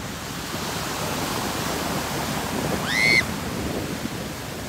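Ocean surf breaking and washing up the beach, a steady rushing that swells slightly, with one short high-pitched cry, rising then falling, about three seconds in.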